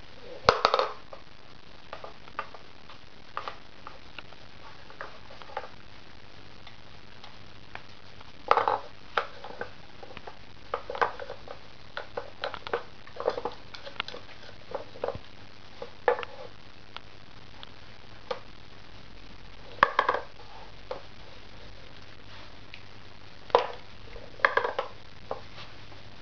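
Wooden dog puzzle toy (Pauli's Commander) clacking and knocking as a small dog noses and paws its sliders, levers and pegs: irregular sharp clicks, some in quick clusters of several.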